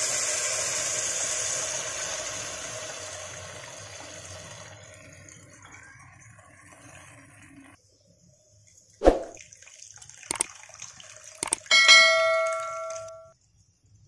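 Tamarind water poured into a hot pan of fried onions and green chillies, hissing loudly at first and dying away gradually over several seconds. Near the end, a few sharp metallic knocks and a short bell-like ring.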